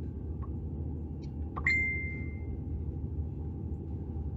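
A single electronic ding about a second and a half in, one bright tone that rings out and fades over about a second, heard over a steady low hum inside a car.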